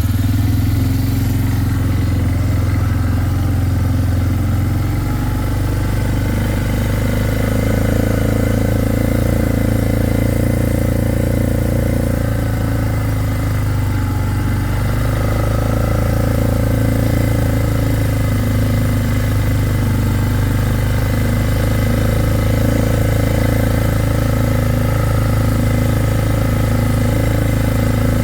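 Four-wheeler (ATV) engine running while riding, a steady note that shifts a little in pitch a few times as the speed changes.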